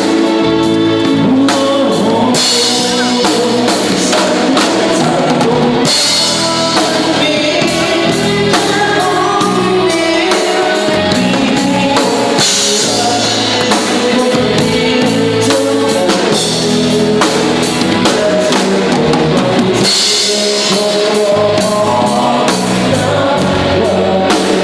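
Band playing Thai ramwong dance music, with a singer over a drum kit keeping a steady beat.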